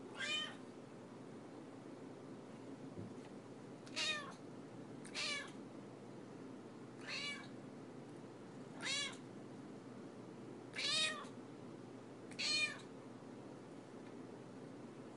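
Domestic cat meowing over and over, seven short whiny meows one to two seconds apart, each rising and then falling in pitch: begging for food (salmon) from its owner.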